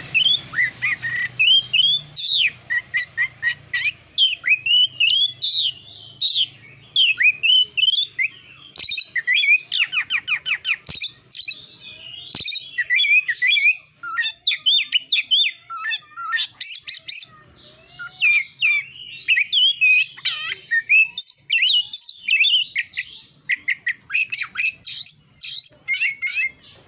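Oriental magpie-robin (kacer) singing a loud, continuous, varied song of whistles, chirps and fast trills, in the rapid 'narung' style prized by bird keepers. The song stops just before the end.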